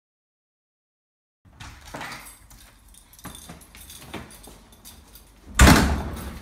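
Dead silence for about a second and a half, then a bunch of keys jangling and a front door being worked with small clicks and rattles, and a louder thud near the end as the door shuts.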